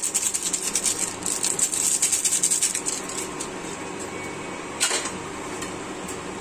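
Spice sachet rustling as Maggi masala is shaken out of it into a pot of boiling noodles, for about three seconds, over the steady hum of an induction cooktop. A single sharp tap comes about five seconds in.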